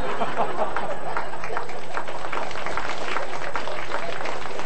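Audience laughing and applauding, a dense patter of many hands clapping.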